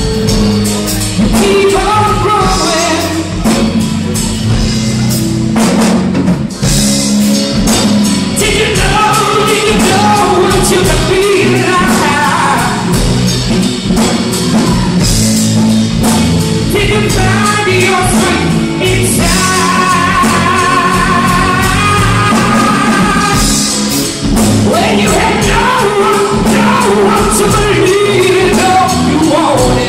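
Live soul band playing: a woman's lead vocal over electric guitar, keyboard, bass and drum kit.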